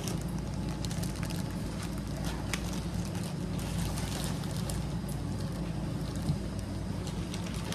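Steady low mechanical hum, with faint scattered ticks and crinkles over it.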